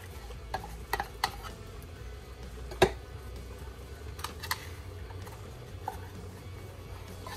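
A can of sweetened condensed milk tapping and clicking against a blender jar as it is poured out: a handful of short sharp knocks, the loudest about three seconds in, over a low steady hum.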